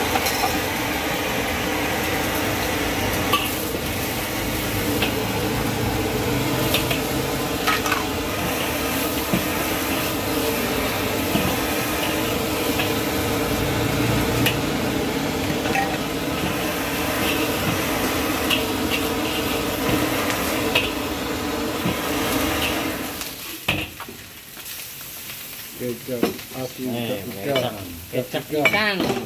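Egg and vegetables sizzling in a steel wok, with a metal spatula clinking and scraping against the pan as they are stirred. The sizzling cuts off abruptly about six seconds before the end, and a voice follows.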